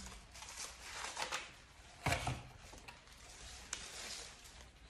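Crisp crackling of raw leaves being plucked from a bunch, bitten and chewed, with soft rustling of the leaves. The sharpest crunch comes about two seconds in.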